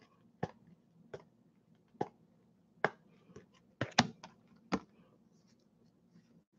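Computer keyboard keys pressed in slow, irregular keystrokes, about eight sharp clicks with the loudest around four seconds in.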